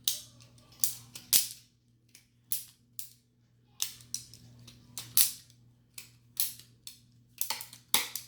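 Homemade LEGO Technic butterfly knife being flipped: its plastic handles clack together in about fifteen sharp, irregularly spaced clicks.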